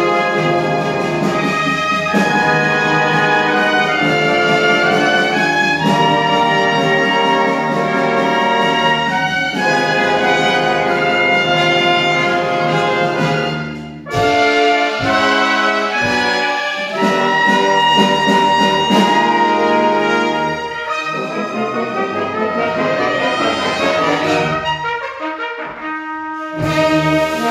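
Solo trumpet playing with a full symphony orchestra of strings and winds in a live concert performance. The music breaks off briefly about halfway through, then comes back in strongly, and thins and quietens near the end.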